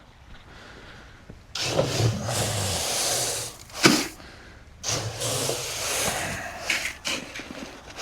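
An engine cranking in two tries of about two seconds each, with a sharp click between them.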